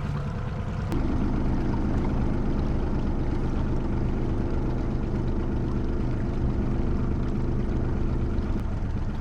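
Boat motor running steadily while trolling, a low steady hum. Its tone grows fuller about a second in and eases slightly near the end.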